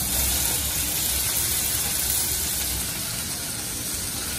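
Raw chicken pieces sizzling as they go into hot oil in a stainless saucepan. The hiss is loudest for the first two to three seconds and eases a little after that, over a steady low hum.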